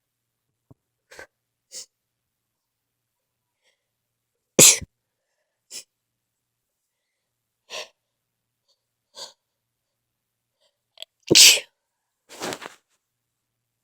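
A person in a sneezing fit: two loud, full sneezes, about five seconds in and about eleven seconds in, with several short, quieter stifled sneezes between them.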